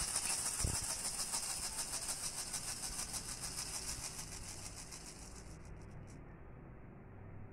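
A maraca shaken in a fast, even rattle that fades away and stops about six seconds in, with a dull thump under a second in.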